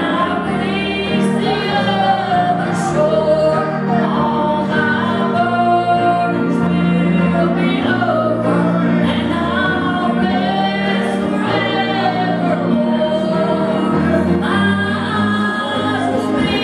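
A woman singing a gospel song solo into a handheld microphone, over a steady instrumental accompaniment.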